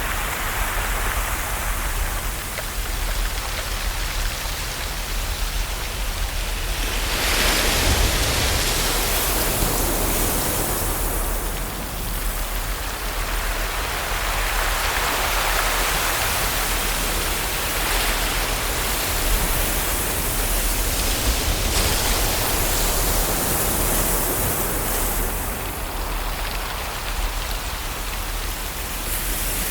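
Ocean waves washing on a shore: a continuous rush of surf that swells and eases every few seconds.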